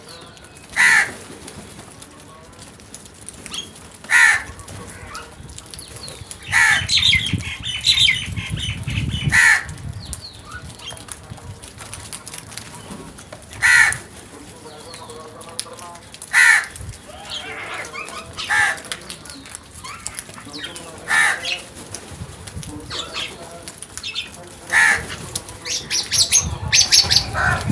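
Crows cawing, single loud caws every few seconds, with wings flapping among them and some higher chirping calls in bursts.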